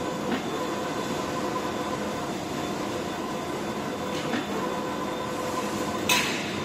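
Automatic glue spraying machine running: a steady mechanical hum with faint constant tones as the gantry head sprays lines of glue across the board, and a short sharp hiss about six seconds in.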